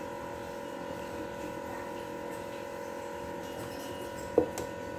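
Steady hum with a few faint steady tones, and a single short knock a little over four seconds in.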